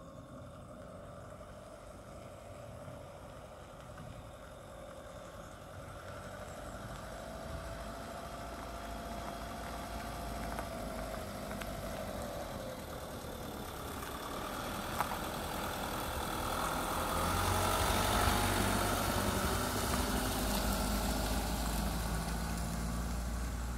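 Campervan's diesel engine running at low speed as the van rolls slowly closer, getting louder until it passes close by near the end.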